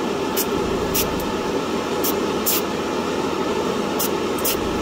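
An airbrush spraying lacquer in short spurts: about six brief hisses, several in pairs half a second apart, as light shading is laid on. Under them runs a steady, even fan rush.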